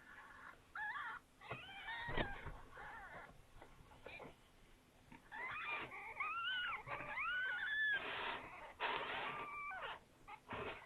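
Young kittens mewing: short, high, arching cries, a few about two seconds in and a quick run of them from about five to eight seconds in. A rustle of blankets follows about eight seconds in.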